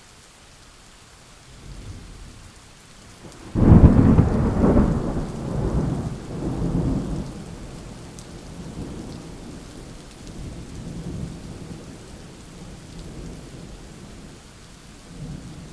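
Thunderstorm: steady rain with a faint rumble, then a sudden loud thunderclap about three and a half seconds in that rolls on in waves for several seconds and dies away to a low rumble under the rain.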